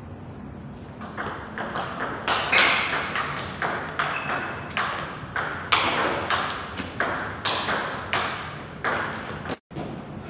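Table tennis rally: the ball clicking off the bats and the table in a quick, even run of sharp pings, about three a second, with a short echo. It starts about a second in and stops near the end.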